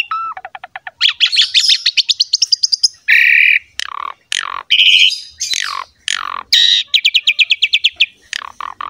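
Asian pied myna (jalak suren) singing a varied, loud song. It mixes fast runs of short repeated notes with a harsh squawk about three seconds in and several notes that slide sharply downward in pitch.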